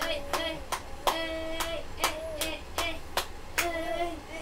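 Sharp hand claps in a loose rhythm, about two a second, over a high child's voice singing or calling in long held notes.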